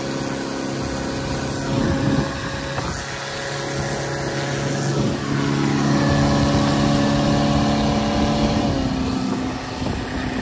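Outboard motor running at speed over the rush of water and wind. The engine's pitch shifts a few times.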